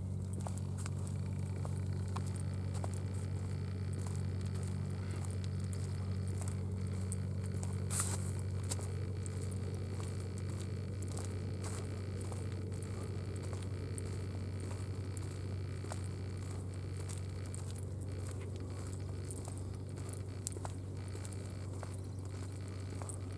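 A steady low hum with scattered small clicks and crackles throughout, and one sharper click about eight seconds in.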